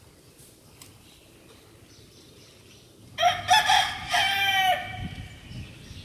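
A rooster crowing once, about three seconds in: a loud cock-a-doodle-doo of several short syllables ending in a longer held note.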